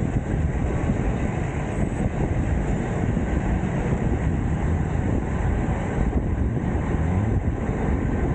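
Wind buffeting the microphone while riding, a steady low rumble with no let-up.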